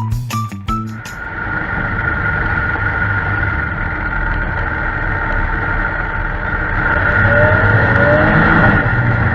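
A short bit of plucked music ends about a second in. A steady motor-vehicle noise follows, with a faint rising pitch near the end.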